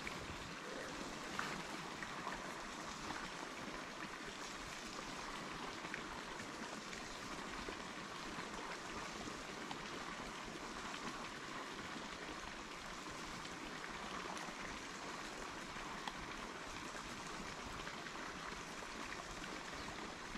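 Steady hiss of running water, with a few faint ticks.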